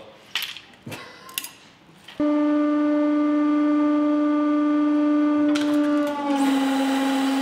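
A few light clicks as a small wired part is set on the press anvil. Then, about two seconds in, the hydraulic press's pump starts with a loud, steady hum. Near the end a hiss joins and the hum drops slightly in pitch as the ram meets the part and the load builds.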